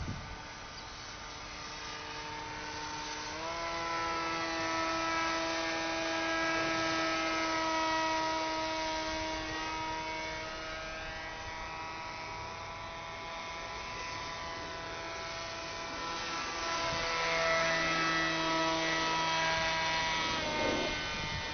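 Small electric motor and propeller of a radio-controlled paper-model airplane whining steadily in flight. The pitch steps up a few seconds in as the throttle is raised, and shifts again near the end.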